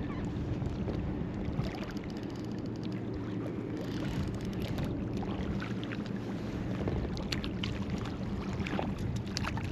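Wind buffeting the microphone and small waves lapping around an inflatable float tube, with a few short splashes along the way.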